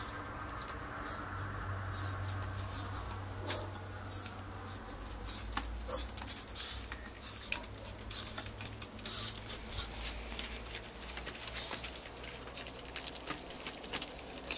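A cat and a small dog scuffling at play, with light pattering, scratching and rustling and a stream of faint irregular clicks and taps.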